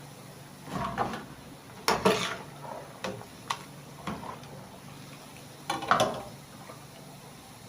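A kitchen utensil clinking and scraping against cookware in several short bursts, the loudest clatters about two seconds in and near six seconds.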